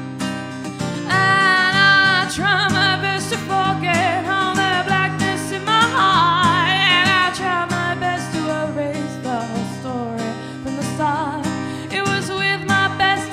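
A woman singing a slow song with vibrato on long held notes, accompanied by her own acoustic guitar.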